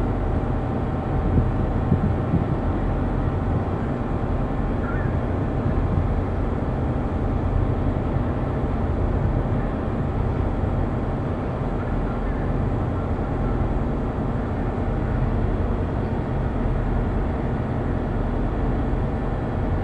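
Steady low rumble of a ship's machinery heard on deck, with a faint steady hum over it.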